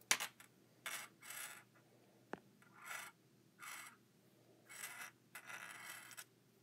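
Braided cables being handled and shifted on a surface: a series of short, faint rubbing and scraping sounds, with one sharp click a little over two seconds in.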